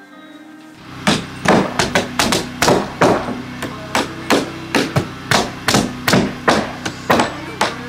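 Hammers nailing down a plywood floor deck: a run of sharp, separate hammer blows, about two to three a second, starting about a second in.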